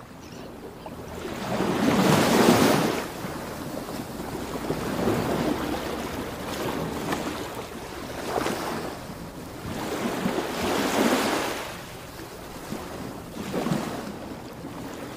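Ocean surf: waves rushing in and receding in surges every two to three seconds, the loudest about two seconds in.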